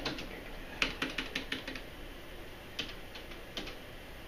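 Keys clicking on an ultrasound machine's console keyboard as an on-screen label is typed: irregular light clicks, with a quick run of several about a second in, then scattered single clicks.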